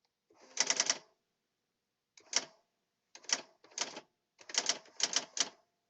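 Brother Correctronic GX-6750 daisy-wheel electronic typewriter printing in short quick bursts of sharp strikes, a few characters at a time with brief pauses between.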